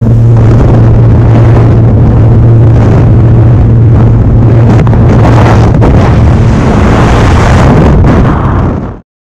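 Light aircraft's propeller engine running at a steady low drone, mixed with loud wind rushing and buffeting the microphone, as from an open jump door. The sound is very loud throughout and cuts off abruptly near the end.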